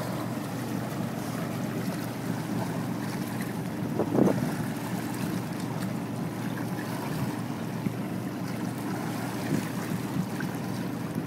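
Water washing along the hull of a reed boat under sail, with wind buffeting the microphone. There is one sudden splash or knock about four seconds in.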